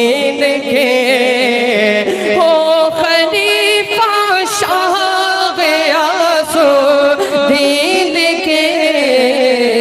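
Devotional manqabat singing: a wordless vocal passage between verses, the melody wavering and gliding in long ornamented phrases.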